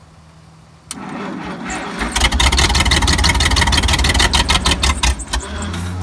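Early-1960s Dynahoe backhoe engine being cranked by its starter from a remote starter button: a click about a second in, a whir, then loud fast, even turning-over for about three seconds before it falls to a lower steady hum near the end. Afterwards the man says the starter is not engaging.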